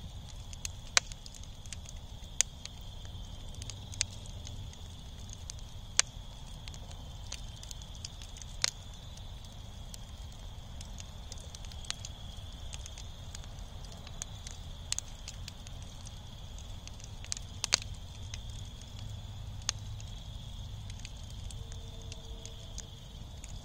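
Bed of glowing fire embers with small flames crackling, giving sharp, irregular pops a second or a few seconds apart over a low rumble and a steady high-pitched tone.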